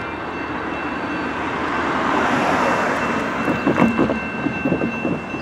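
Two EMD diesel road-switcher locomotives (a GP60 and a GP40-2) approach running light, their engine sound swelling over the first few seconds. From about three and a half seconds in, their wheels clack sharply over the rails. The grade crossing's electronic bell rings steadily throughout.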